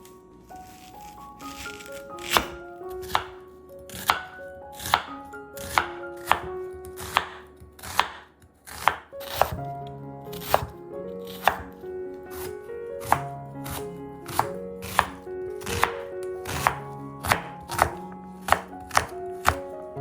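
Knife chopping on a cutting board, about two dozen sharp, uneven strikes beginning about two seconds in, over soft piano music.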